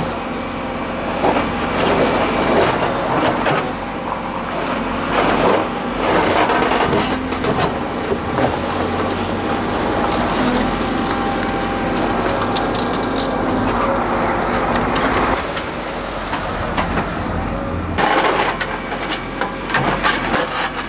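JCB 3CX backhoe loader's diesel engine running, with irregular crunching and cracking over it throughout.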